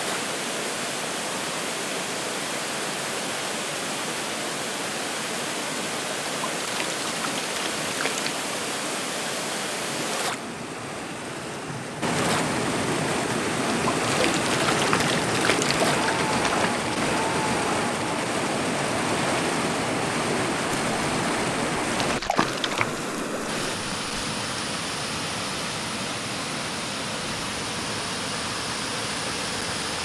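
Steady rush of a waterfall pouring into its plunge pool and the stream below, which drops in level and then comes back louder about ten and twelve seconds in. A few faint knocks sound in the second half.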